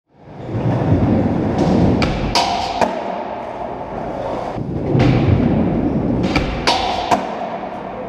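Music with a slow drum beat and sharp percussive clacks, fading in at the start; the same bar of strikes repeats about every four and a half seconds.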